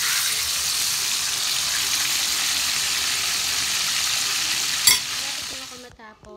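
Chicken pieces frying in hot oil in a steel wok, sizzling steadily. A sharp click about five seconds in, and the sizzle cuts off near the end.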